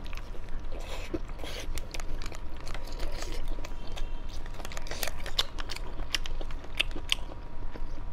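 Close-up sounds of a person biting and chewing a sauce-coated fried skewer snack: crisp crunches and crackling clicks mixed with wet mouth and chewing sounds.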